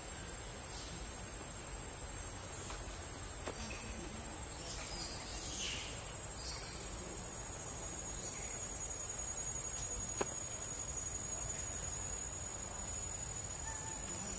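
A steady, high-pitched drone of insects, with a few faint chirps around the middle and two or three soft clicks.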